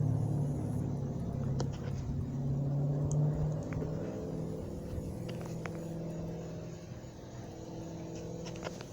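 A motor vehicle's engine running with a steady low hum that fades gradually, as if the vehicle is moving away.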